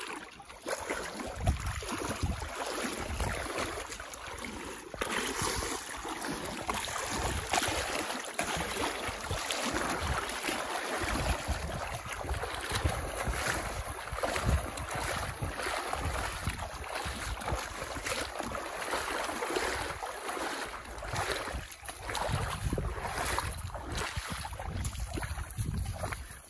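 Boots wading through a shallow river, the water splashing and sloshing around the legs with each step, with wind buffeting the microphone.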